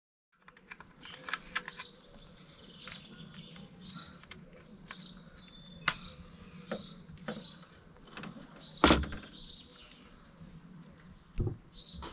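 Scattered clicks and knocks of a plastic tailgate handle assembly and its bolts being handled, with a sharper knock about nine seconds in and a dull thump near the end. Birds chirp repeatedly in the background.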